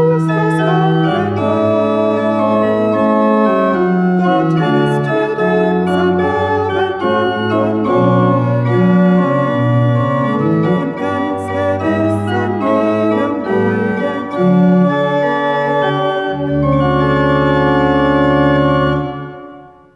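Church pipe organ playing a hymn in full chords, with a woman's voice singing along. It closes on a long held final chord that fades out at the very end.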